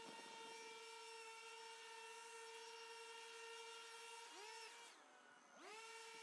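Gas leaf blower running at a steady high pitch. About four seconds in it dips briefly, then it is throttled down and quietens for half a second before revving back up.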